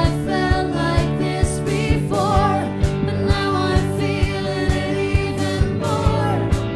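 A live band playing a song: a woman singing lead over electric guitar, bass guitar and a drum kit keeping a steady beat of about two hits a second.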